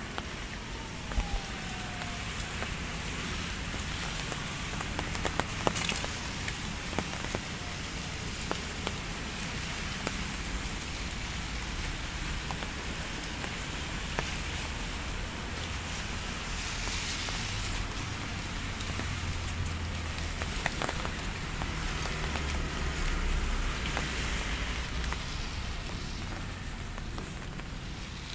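Drizzle falling steadily, an even hiss of light rain on leaves, grass and paving, with a few sharp ticks of single drops. A low rumble swells and fades in the second half.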